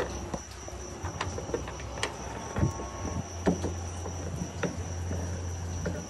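Scattered light clicks and knocks of metal parts being handled inside a Ford Ranger's door panel during work on the door latch and handle mechanism, over a steady high-pitched whine and a low hum.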